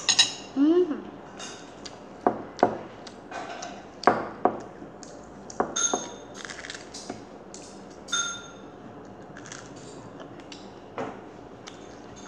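A child eating a sandwich: chewing and lip smacks come as a string of sharp clicks, with a short hummed "mm" about half a second in. Two light ringing clinks, like metal touching a dish, sound around the middle.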